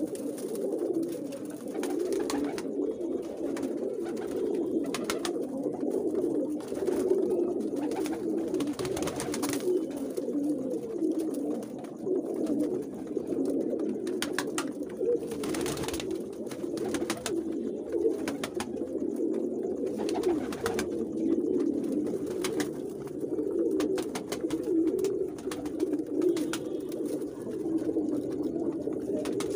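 A flock of domestic high-flyer pigeons cooing steadily, many coos overlapping into a continuous low chorus, with a few short clicks here and there.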